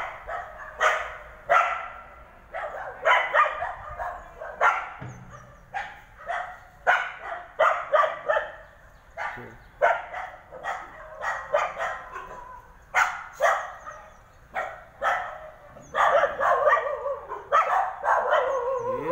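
Dog barking over and over in sharp barks, roughly one to two a second, coming thicker near the end.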